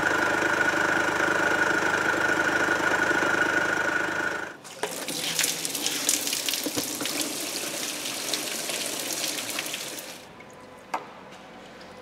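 Mercedes CLA 220 CDI four-cylinder diesel engine running at idle with a steady high whine. After about four and a half seconds this gives way to flushing water from the cooling system gushing and splashing into a drain pan for about six seconds, then stopping.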